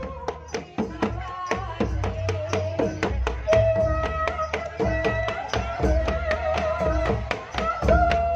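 Live Javanese jaranan music: kendang drum strokes in a quick, steady rhythm. From about three and a half seconds in, a held, wavering melodic line sounds above the drums.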